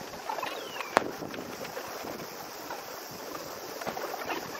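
Steady outdoor noise of wind and a waiting crowd on an open riverbank, with one sharp bang about a second in.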